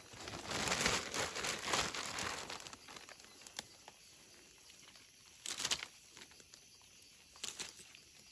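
Rustling and crinkling of dry leaves and forest undergrowth being handled or brushed through. It is busiest in the first two and a half seconds, then drops to a low bed with three short rustles later on.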